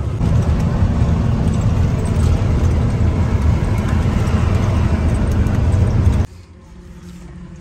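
Heavy truck driving on a highway, heard from inside the cab: a steady, loud low engine drone mixed with road noise. It cuts off suddenly about six seconds in, leaving a much quieter background.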